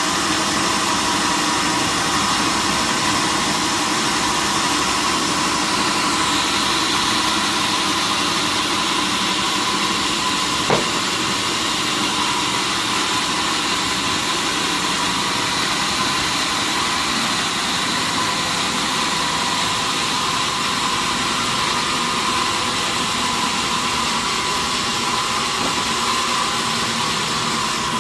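Sawmill machinery running steadily, a continuous mechanical noise with a steady whine and a brighter, higher hiss joining about six seconds in. There is one sharp click about eleven seconds in.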